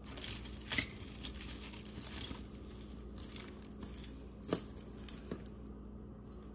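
Loose jewelry clinking and jangling as it is handled, bangle bracelets knocking together, busiest in the first few seconds, with a sharp click just under a second in and another about four and a half seconds in.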